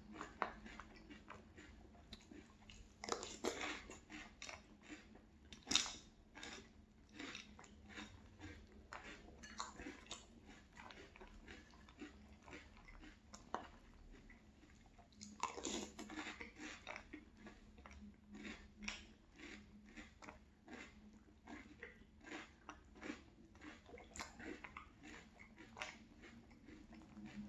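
A person chewing crunchy Boo Berry cereal: a run of small, irregular crunches with a few louder bites.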